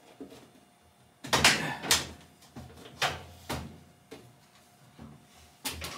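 Clunks and scraping of a Samsung top-load washer's top panel being lifted and shifted onto the cabinet to line it up: about six knocks, the loudest about a second in.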